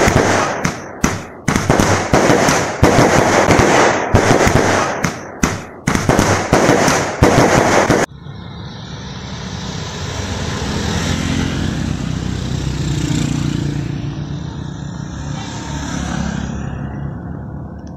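Fireworks crackling and banging densely for about eight seconds, then cutting off abruptly. A motorcycle engine follows, growing louder and then fading as it passes.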